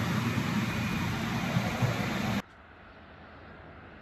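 Diesel multiple unit's underfloor engine throbbing as the train pulls away from the platform, with wheel and rail noise; about two and a half seconds in it cuts off abruptly to faint outdoor background.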